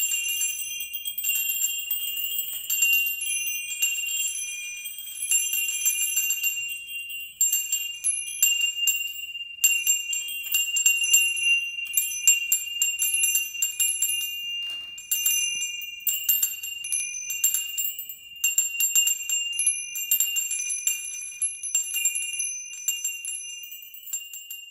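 A bell rung over and over, its high ringing tones overlapping and sustaining between strikes, growing fainter near the end.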